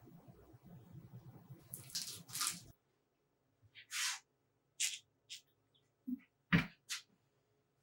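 Spray paint hissing in short separate spurts, each a fraction of a second long, with a few light knocks near the end.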